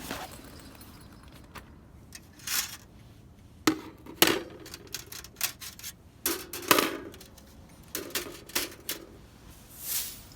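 Thin metal plates of a compact folding fire pit clinking and clattering as they are handled, about a dozen sharp knocks and clanks, some with a brief ring.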